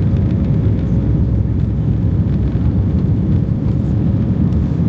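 Airbus A320's jet engines heard from inside the cabin as a loud, steady rumble, with a faint steady hum over it.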